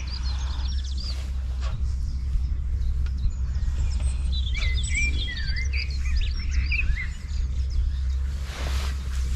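Small songbirds chirping and singing in quick phrases, in two bursts: at the start and again from about four to six seconds in, over a steady low rumble.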